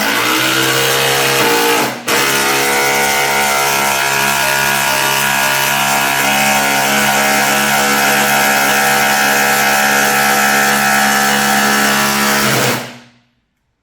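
Cordless impact driver hammering continuously under load for about thirteen seconds. The pitch rises over the first two seconds, there is a brief break about two seconds in, and it stops shortly before the end.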